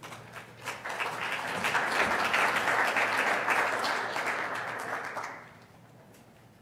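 Audience applauding, swelling within the first second and dying away about five seconds in.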